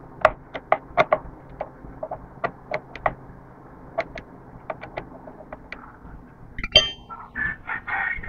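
Light metallic clicks and taps of a small screwdriver working the shuttle-race nuts of a domestic sewing machine as they are tightened, with one louder clack near the end. A rooster starts crowing in the last second or so.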